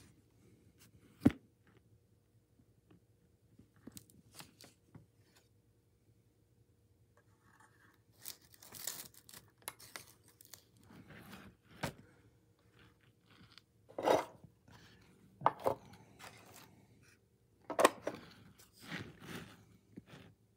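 Handling sounds of a plastic HO-scale model locomotive, its cardboard box and paper sheet: scattered sharp clicks and knocks with short rustles and scrapes in between. The sharpest click comes about a second in, with more knocks in the second half.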